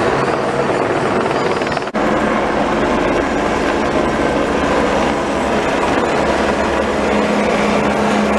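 Steady loud mechanical drone, with a brief dropout about two seconds in and a low steady hum joining near the end.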